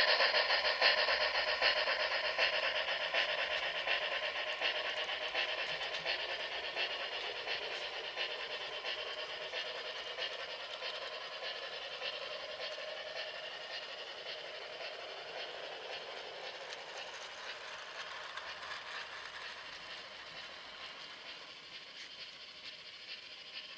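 MTH O-gauge model of a Union Pacific 9000 class locomotive and its freight train running past on track: a fast, steady clatter that grows steadily fainter as the train moves away.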